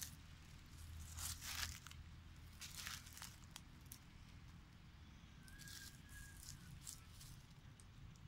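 Faint crunching and rustling of dry fallen leaves under footsteps, in a few irregular bursts, the loudest about a second in.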